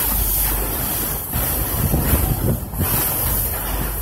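Wind buffeting the microphone aboard a moving boat, a gusty low rumble over the steady rush of the sea.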